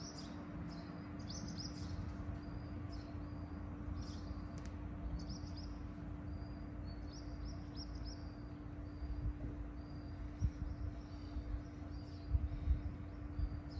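Small birds chirping, short high notes repeated over and over, over a steady low hum and rumbling background noise, with a few louder low rumbles near the end.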